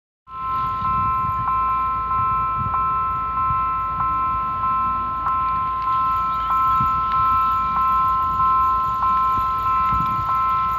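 Railway level-crossing warning bell ringing on and on, about three strikes every two seconds, warning of an approaching train.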